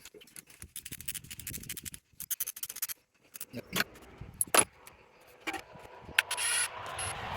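Metal hand tools and engine parts clinking and rattling in irregular bursts, with several sharp knocks and a brief louder metallic scrape near the end, as the LS engine is being worked on.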